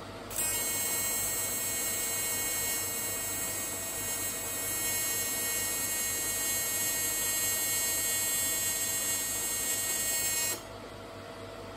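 AC TIG welding arc on thin aluminium: a steady, high-pitched buzz that strikes about half a second in and cuts off suddenly near the end.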